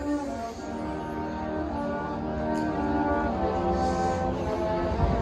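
Marching band playing slow, held brass chords that gradually swell louder, with a low drum hit near the start and another near the end.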